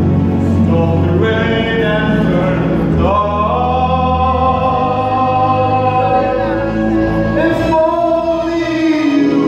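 A male voice singing long held notes over backing music, a ballad from a stage musical.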